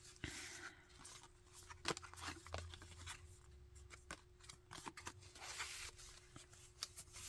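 Quiet rustling and scattered light clicks of paper pages being turned and handled in a handmade junk journal.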